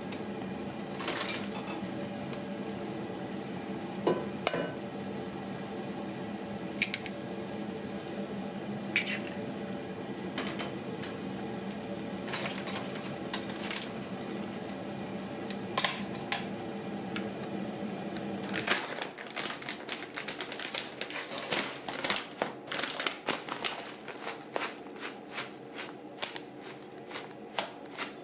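A kitchen appliance hums steadily under occasional sharp clinks of utensils or dishes, then switches off about two-thirds of the way through. A dense run of quick clicks and taps follows, like kitchen work on a counter.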